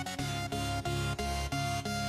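Background music: an instrumental passage of a pop song, with no singing, a steady pulsing beat and deep bass notes.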